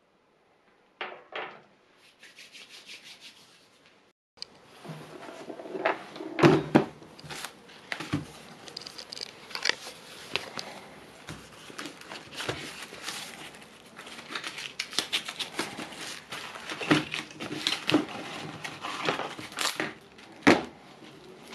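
Cellophane-wrapped cardboard boxes of small firecrackers being handled: crinkling plastic wrap with frequent clicks and taps as the boxes are picked up and set down, starting about four seconds in after a few short scrapes.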